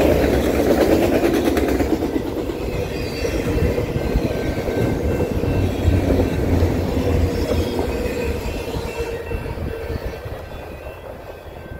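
Autorack freight cars of a long manifest train rolling past, steel wheels rumbling and clacking on the rails. The sound fades steadily over the last few seconds as the end of the train moves away.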